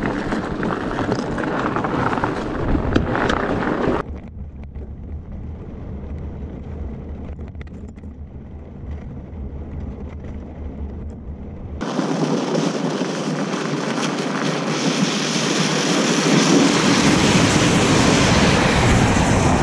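Fat bike with studded tires riding across glare ice, its tire hiss mixed with wind rushing over the microphone. The sound changes abruptly twice: a loud hiss drops to a quieter low rumble about 4 s in, and a louder, brighter hiss returns about 12 s in.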